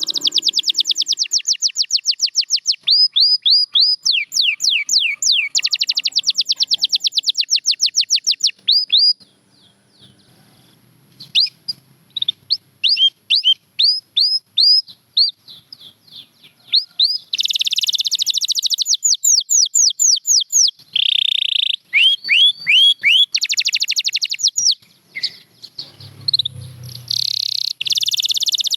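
Domestic canary singing: fast trills of rapidly repeated notes and quick down-sweeping whistles. The song breaks off briefly about a third of the way in, continues with sparser notes, then returns to full rolling trills.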